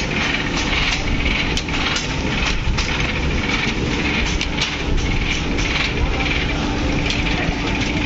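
Machinery running steadily: a constant low hum under a noisy din, with scattered sharp clicks.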